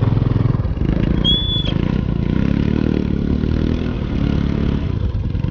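Small motorcycle engine running steadily at low speed through mud and shallow water. A brief high whistle sounds about a second in.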